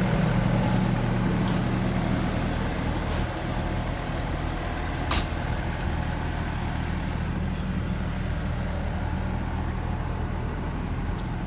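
Doosan DX63-3 mini excavator's 60 hp Yanmar diesel engine running steadily, with a single sharp click about five seconds in.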